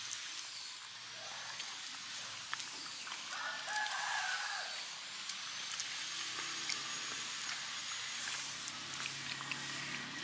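A rooster crows once, about three seconds in, over a steady high-pitched whine and scattered small clicks.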